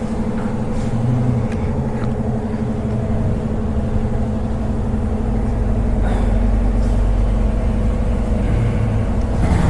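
A motor vehicle engine running with a steady hum. A deeper low rumble swells in about halfway through and holds.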